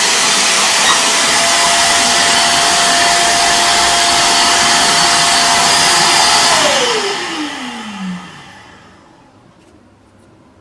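1200 W wet/dry canister vacuum cleaner running with a steady high whine while sucking up debris. It is switched off about six and a half seconds in, and the motor's whine falls steadily in pitch as it spins down over about two seconds.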